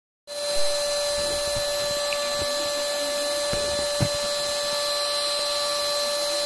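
Spray painting machine running: a steady motor whine over an even hiss, with a few light knocks.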